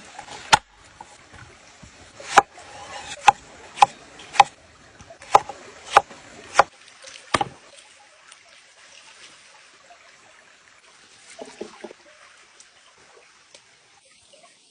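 Sharp knocks, about nine, unevenly spaced over the first seven seconds or so, then only faint sound.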